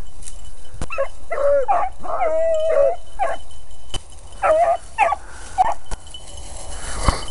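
Beagles baying on a rabbit's trail: a run of wavering, drawn-out bawls, one held longer, then after a short gap a second, shorter bout of bays.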